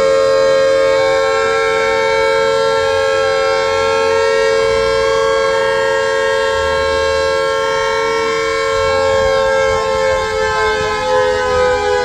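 Air raid siren sounding a steady, loud wail on two close pitches, held level, then beginning to sag slightly in pitch near the end.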